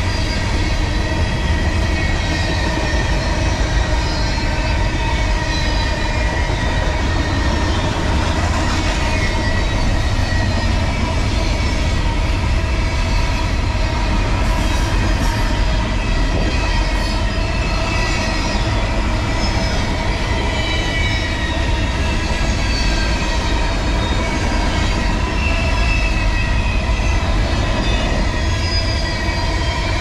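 Freight cars of a CSX manifest train, containers on flatcars, rolling steadily past: a continuous rumble of steel wheels on rail with several high, drawn-out ringing squeal tones from the wheels that drift slowly in pitch.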